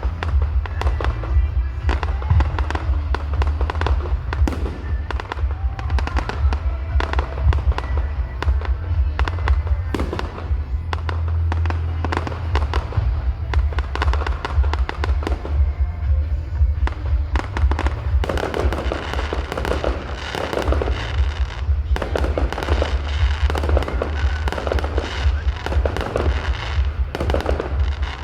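Fireworks display: shells bursting in rapid succession with crackling, getting denser about two-thirds of the way in.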